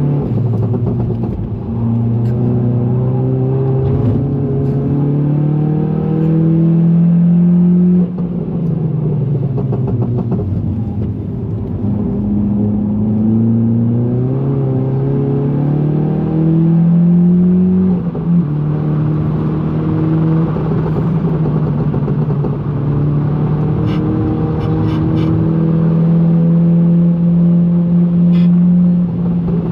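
Tuned Volkswagen Golf GTI's turbocharged four-cylinder engine pulling hard, its pitch climbing through the revs and dropping sharply at upshifts about eight and eighteen seconds in, then building again.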